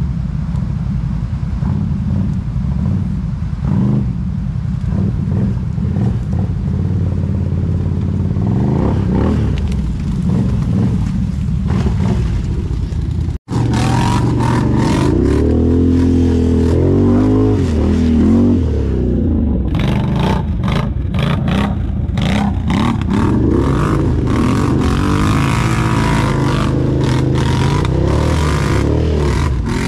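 ATV engine running under throttle, its pitch rising and falling as it revs, with many short knocks and rattles in the second half. The sound drops out for an instant about halfway through.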